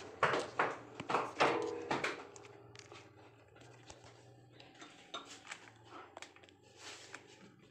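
A quick run of clicks and knocks, loudest in the first two seconds and sparser and fainter after, over a low steady hum.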